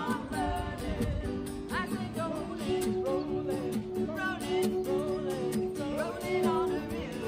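Live acoustic music: a woman singing with an acoustic guitar being played.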